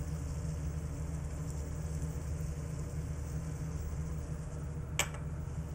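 A steady low hum runs throughout, with a single light clink about five seconds in.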